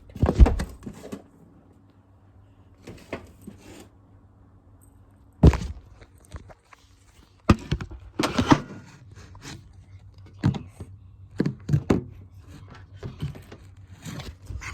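Scattered knocks and thuds of objects being handled and set down, the loudest about half a second in, then more around five and a half and eight seconds, with fainter taps between.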